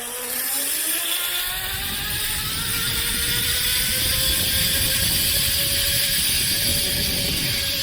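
Zip-line trolley pulleys running along the cable, a whine that rises in pitch as the rider picks up speed and then holds steady. Wind rushes over the microphone.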